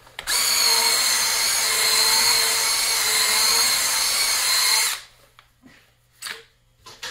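Drill-driven roto brush spinning against a ski base, polishing in paraffin base wax: a steady power-tool whine with brushing noise that starts just after the beginning and cuts off suddenly about five seconds in.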